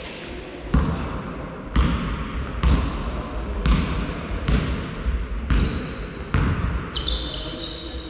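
A basketball dribbled on a gym floor: seven bounces at about one a second, each echoing in the hall. Near the end come high squeaks of sneakers on the court.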